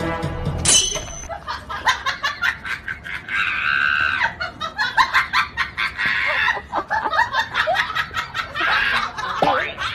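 Human laughter: rapid, repeated high-pitched bursts of laughing.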